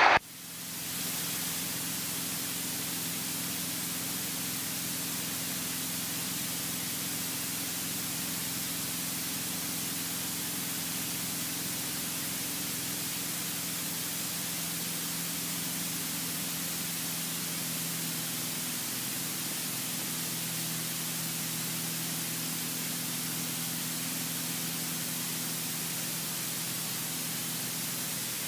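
Steady hiss of an aircraft intercom audio feed, rising in over the first second, with the light aircraft's engine drone faint beneath it as a low, even hum.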